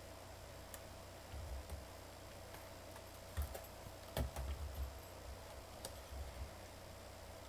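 Scattered light plastic clicks and taps with low handling bumps, loudest about four seconds in: a laptop being handled and its parts pressed into place during reassembly.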